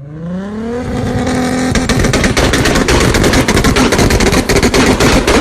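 A tuned car engine revving up, its note rising for about two seconds, then held at high revs while the exhaust crackles and pops in a rapid, continuous run of sharp bangs: unburnt fuel backfiring in the exhaust.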